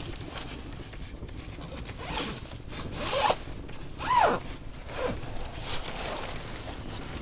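A zipper pulled in several short strokes, each rising and falling in pitch, the loudest about three and four seconds in.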